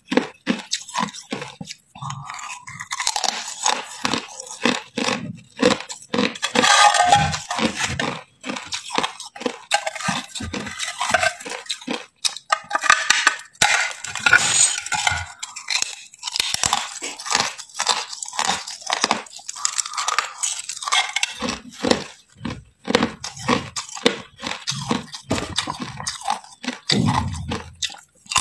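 Slabs of hard clear ice being bitten and chewed: many sharp crunches and cracks in quick, irregular succession.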